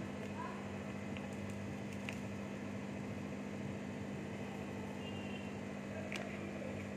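A steady low electrical hum with a weaker higher tone above it over an even background hiss, broken only by a few faint ticks.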